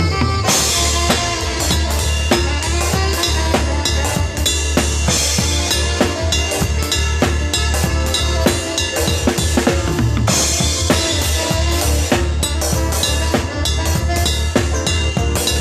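Live band playing a song at full volume: a drum kit with kick and snare hits keeps a busy, steady beat over a continuous bass line and sustained instrument tones.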